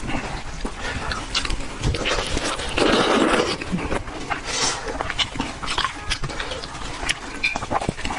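Close-miked chewing and gnawing on braised sheep head, with wet smacking clicks throughout and a louder slurp about three seconds in.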